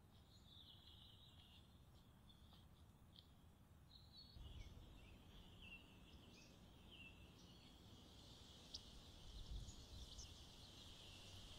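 Faint outdoor nature ambience: small birds chirping and twittering, busier after about four seconds, over a low rumble.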